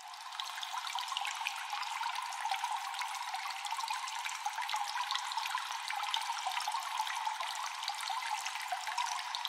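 Shallow seawater trickling and dripping in a rocky tide pool: a steady fizzing trickle dotted with many small crackles.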